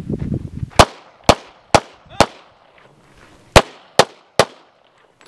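Handgun fired seven times: four quick shots about half a second apart, a pause of over a second, then three more, each a sharp crack with a short echo trailing off.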